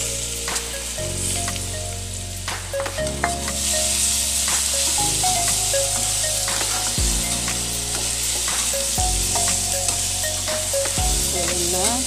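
Sliced bananas and onion sizzling in hot oil in a wok, stirred with a metal spatula that clicks and scrapes against the pan; the sizzle grows louder about three seconds in. Background music plays underneath.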